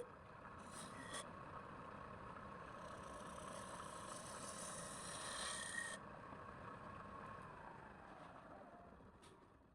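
Wood lathe running while a turning tool scrapes the spinning wood. About six seconds in the cutting stops, and the motor's tone falls and fades as the lathe slows down.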